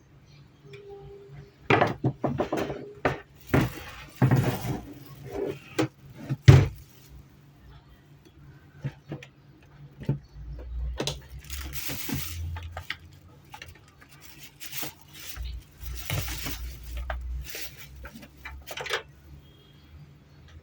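Irregular clicks, knocks and clinks of small hard parts being handled, most of them bunched in the first few seconds, with rustling or sliding noise twice later on.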